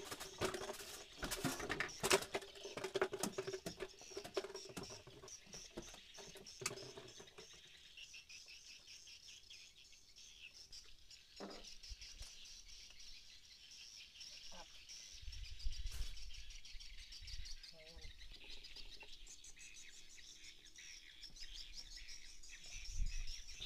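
Handling noises in a small boat as a freshly caught catfish is dealt with. Dense crackling and rustling fill the first several seconds, followed by scattered taps and a few dull thumps, all over a steady high chirping in the background.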